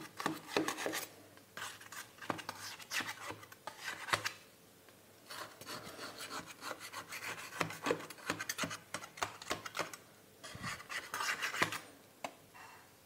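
A knife blade scraping around the sides of a metal cake pan to loosen a freshly steamed banana-chocolate sponge cake: rasping, scratchy strokes in several bursts, with short pauses about four seconds in and about ten seconds in.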